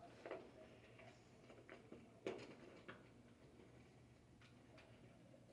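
Faint clicks and handling noises, the loudest a single sharp click about two seconds in: a multimeter's red test lead being pulled from the volts jack and plugged into the amps jack.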